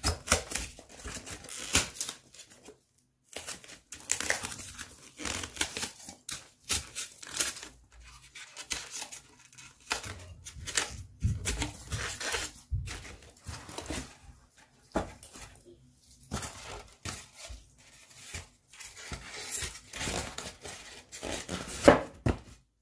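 Polystyrene foam sheets squeaking, crunching and snapping as they are pressed, broken and wedged into the sides of a wooden cradle frame, in many short irregular strokes.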